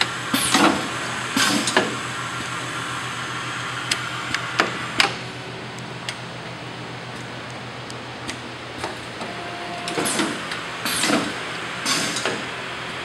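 HMI model 645 precision screen printer and its single stack loader running automatically: a steady machine hum with clicks, knocks and short hisses that fall in pitch. The same cluster of sounds comes back about ten seconds later as the machine repeats its cycle.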